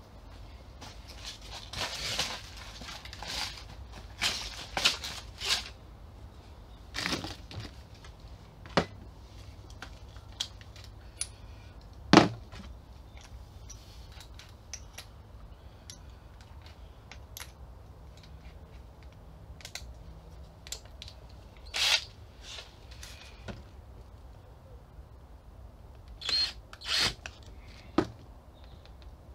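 Tools being handled on a workbench: scattered knocks, clicks and rustles, the loudest a single sharp knock about twelve seconds in, with a few short bursts near the end.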